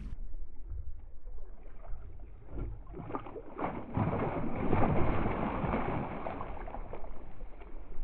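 A hooked bass thrashing and splashing at the water's surface beside the boat, louder from about halfway through, over wind noise on the microphone.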